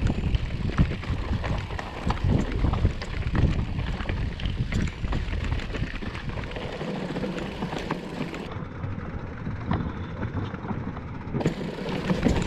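Mountain bike rolling fast down a rocky, gravelly trail: tyres crunching over loose stones and the bike rattling and knocking over bumps, under steady wind rumble on the microphone.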